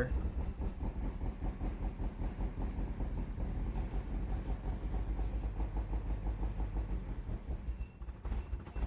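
1990 Mazda Miata's four-cylinder engine running at idle with a fast, even pulsing beat, running a little rough after the fuel pump relay has been bypassed.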